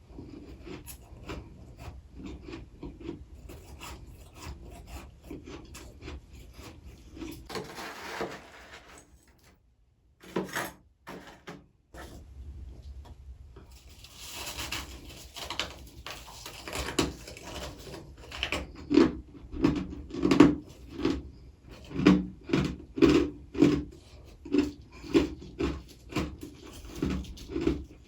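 Freezer frost being scraped and chewed: rasping scrapes, then steady chewing strokes about twice a second through the second half.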